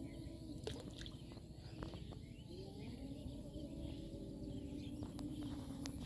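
Outdoor pondside ambience: a steady low hum whose pitch wavers slightly, with scattered faint ticks and clicks.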